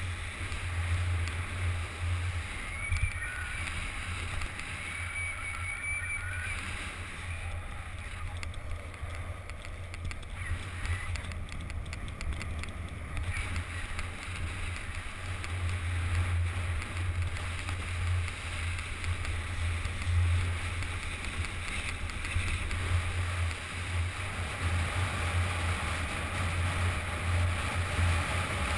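Wind rushing over the microphone of a skier's GoPro action camera, with the steady hiss and scrape of skis sliding on groomed, packed snow during a downhill run; it gets a little louder about halfway through as speed picks up.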